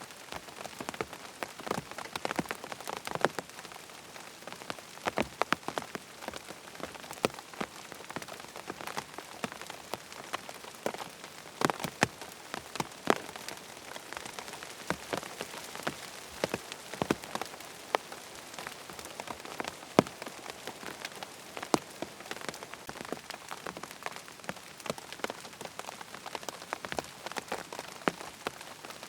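Rain pattering on a tent: a steady hiss of rainfall with many separate drops ticking sharply on the fabric.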